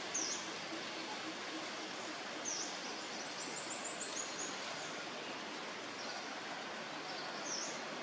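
Steady outdoor hiss with a small bird's high, thin chirps: a sharp call just after the start, a quick run of rapid notes around the middle, and more single calls later on.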